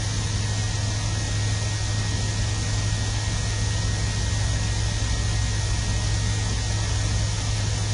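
Steady low hum with an even hiss and a faint, thin high tone, unchanging throughout; no distinct events.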